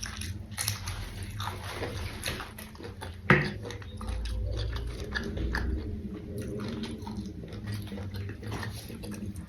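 Close-miked biting and chewing of raw papaya stem and leaves with sambal: a run of short crunchy bites and chews, with one sharp, louder bite about three seconds in.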